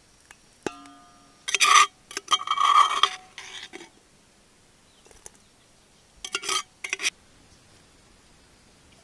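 Metal clinking and scraping in a heavy iron mortar as the pounded prawn, garlic and chilli mix is scraped out: one sharp clink that rings briefly about a second in, then several loud rasping scrapes, and two shorter scrapes near the end.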